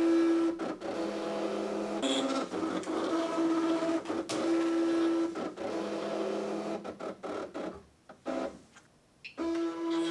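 Cricut Expression die-cutting machine cutting paper: its motors whine in steady tones that shift pitch every half second or so as the blade carriage and rollers move, with scattered clicks. It goes almost quiet for about a second and a half near the end, then starts up again.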